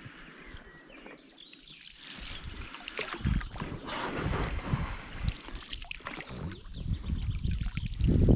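Water sloshing around a small fishing boat, with a deep, uneven rumble of outdoor noise that grows louder from about three seconds in.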